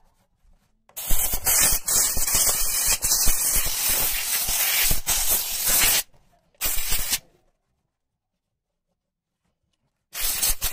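Dry-steam cleaner's gun hissing in triggered jets: one long jet of about five seconds starting about a second in, a short one soon after, and another starting near the end.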